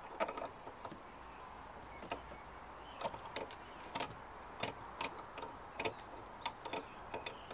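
Irregularly spaced sharp clicks and light knocks of a small hand tool and metal fittings on a Makita MLS100N compound miter saw as it is being assembled.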